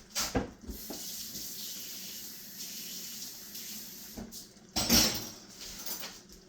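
Kitchen tap running, filling a small container with water for a cornstarch slurry, for about three seconds. Short knocks near the start and a louder knock about five seconds in, as the container is handled.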